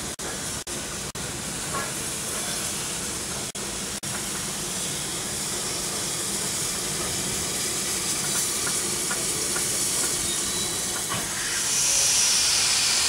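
Steam locomotive with its train drawing slowly into a station, the sound of the engine and its steady steam hiss growing louder as it nears, with a few faint clanks. Near the end a louder hiss of steam starts. The recording drops out briefly several times in the first few seconds.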